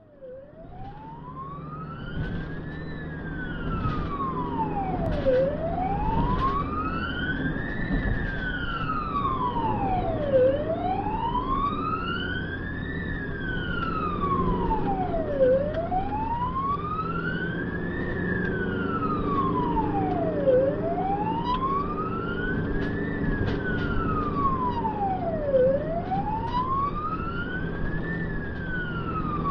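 Ambulance siren wailing in a slow rise and fall, one sweep about every five seconds, over engine and road noise heard from inside the cab. It fades in over the first few seconds.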